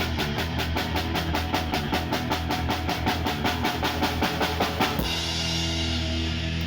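Live rock band playing the closing bars of a song: fast, even drum hits over a sustained bass and chord, growing louder toward the end. About five seconds in the drumming stops and a held chord rings on.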